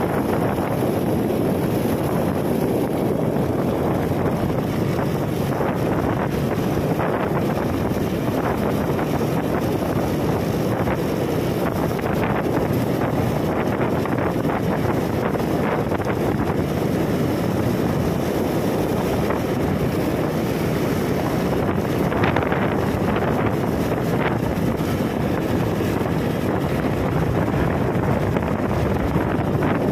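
Motorcycle riding along a road, a steady rush of wind buffeting the microphone over the engine and tyre noise.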